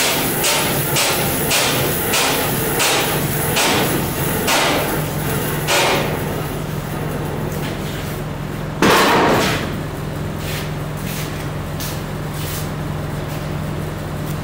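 Band saw running with a steady hum and a regular ticking about twice a second that stops about six seconds in; a loud burst of noise lasting about a second comes near the nine-second mark.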